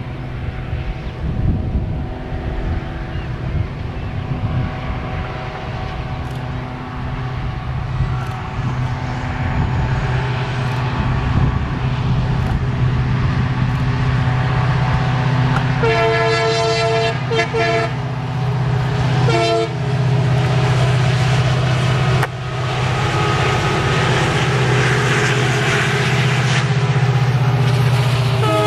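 EMD diesel locomotive, a two-stroke 16-cylinder EMD 710 engine, running under power with a steady low drone that grows louder as the train approaches. Its multi-tone horn sounds for about a second and a half about two-thirds of the way through, once more briefly soon after, and again at the very end.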